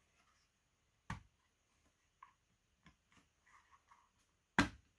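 Sharp plastic clicks and knocks as the Byrna HD air pistol's polymer frame and its small parts are handled and pressed together during reassembly. There are a few separate clicks: a clear one about a second in, fainter ticks in the middle, and the loudest near the end.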